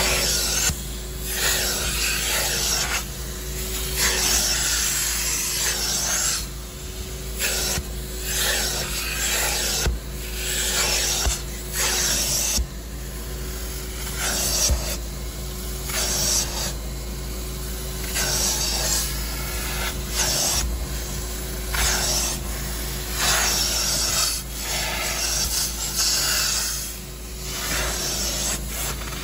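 Carpet and upholstery extractor running steadily while its clear upholstery hand tool is drawn in repeated strokes across a cloth car seat. Each pass makes a rasping hiss of suction pulling water out of the fabric, about one stroke every second and a half.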